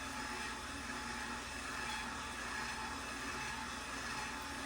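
KitchenAid stand mixer motor running steadily, driving the meat grinder attachment as it stuffs sausage.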